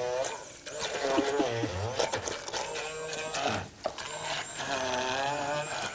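Electric stick blender puréeing thick tarragon pesto in a tall beaker. Its motor whine dips in pitch and recovers several times as the blade bogs down in the paste, and it breaks off briefly twice.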